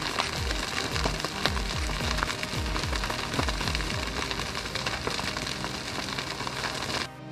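Background music: a fast beat of deep, falling bass hits under a dense crackling, hissing layer. Near the end it cuts suddenly to a softer passage of held notes.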